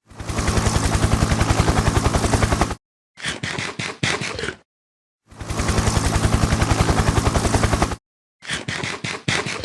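Rapid automatic gunfire sound effect, about ten shots a second, in four bursts: two long ones and two short, cut off abruptly with dead silence between them.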